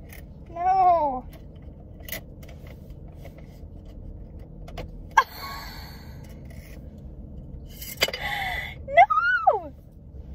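A young woman's frustrated whining groans, twice, each rising then falling in pitch. In between come a sharp click and some rustling.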